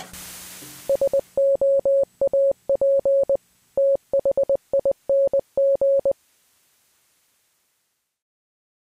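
A sudden electronic hit with a hiss that fades out, then a single-pitched synthesized tone switched on and off in a string of short and long beeps, like Morse code, for about five seconds before it stops.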